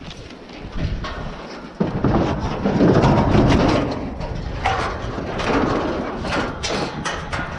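Rattling and knocking of a steel livestock trailer and pen panels, loud from about two seconds in, with a run of quick sharp knocks in the second half.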